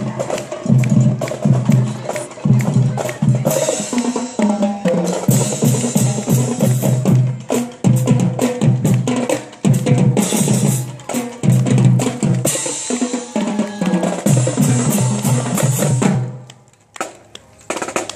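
Marching band drumline playing a cadence on snare, tenor and bass drums as it passes. The drumming stops near the end.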